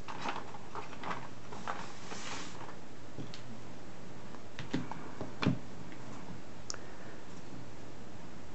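Small plastic toy pieces and packaging being handled: scattered light clicks and rustles, with two slightly louder knocks about five seconds in, over a steady low hum.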